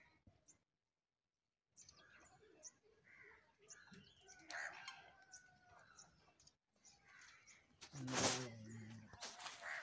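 A rooster crowing once in the distance, a held call of about a second around the middle. Near the end comes a louder, low-pitched sound about a second long with a sharp knock.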